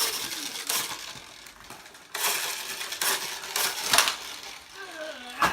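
Hard plastic toy parts and packaging being handled: rustling and crinkling with several sharp plastic clacks, the loudest about four seconds in.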